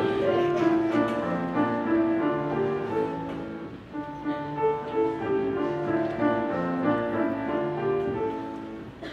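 Instrumental music with a piano-like keyboard playing a melody over lower accompanying notes, pausing briefly about four seconds in.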